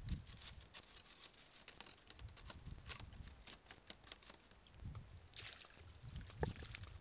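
Faint, quick, irregular small splashes and clicks of shallow seawater, with a few low thumps, from wading and poking a wooden pole among coral rocks.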